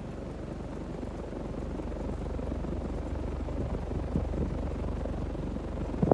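Casablanca Lady Delta ceiling fan running: a low, steady hum and rumble that grows gradually louder.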